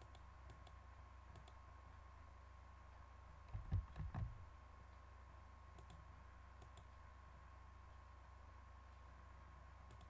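Near silence with faint, scattered computer mouse clicks. Two low thumps come about four seconds in, over a faint steady hum.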